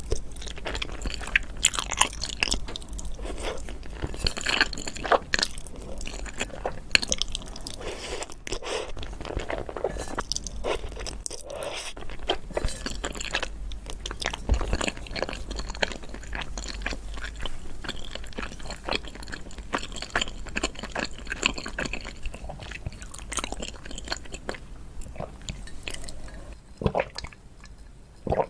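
Close-miked chewing of crunchy food, a dense run of crisp crunches and wet mouth clicks that thins out and grows quieter over the last few seconds.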